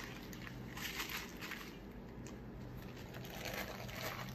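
Baking paper crinkling softly in several short rustles as it is peeled back and handled around a rolled sponge cake.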